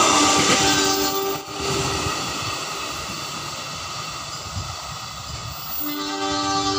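Railway diesel multiple unit sounding its two-tone horn twice, briefly about half a second in and again near the end. The rumble of the passing train is loudest at the start and fades after about a second and a half.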